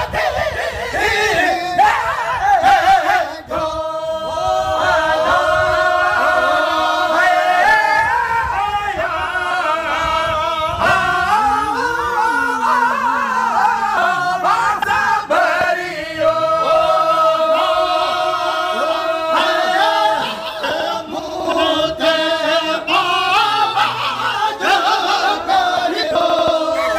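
Sindhi molood, a devotional hymn in praise of the Prophet, sung unaccompanied by men's voices, with long held notes that swell and fall in pitch.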